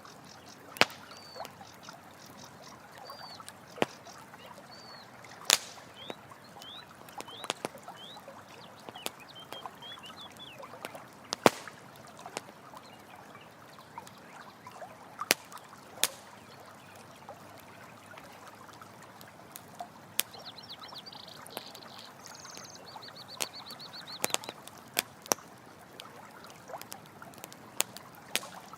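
Campfire crackling with scattered sharp pops over a steady rush of running water. High chirping calls come and go in the first third, and a short high trill sounds about two-thirds of the way in.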